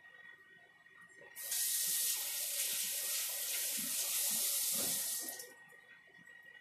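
Kitchen faucet running into a stainless-steel sink as a steady hiss for about four seconds, starting about a second and a half in and shut off near the end.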